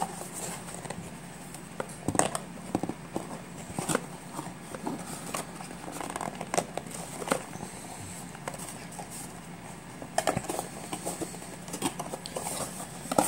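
Scattered clicks, taps and light rustles of plastic camera accessories and packaging being handled and worked loose by hand, with a few sharper clicks every second or two.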